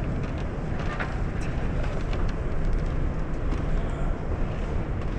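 Steady low rumble of a large exhibition hall's background noise, with scattered light clicks and knocks.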